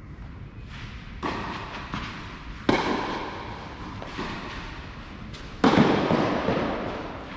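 Tennis ball struck by rackets and bouncing on a clay court during a rally: a string of sharp hits, the loudest about two and a half and five and a half seconds in, each followed by a ringing echo off the covered hall.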